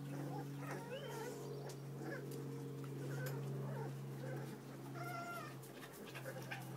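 Very young puppies whimpering and squeaking: several short, high calls, with a clearer one about five seconds in, over a steady low hum.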